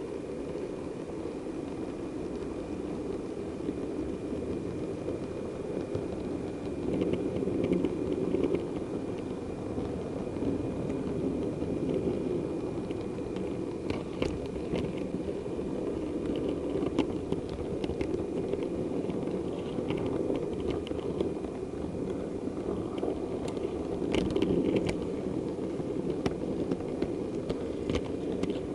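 A model railway diesel multiple unit running along the layout track, heard from on board: a steady rumble of wheels and motor with a faint high whine, and sharp clicks as the wheels cross points, around the middle and again near the end.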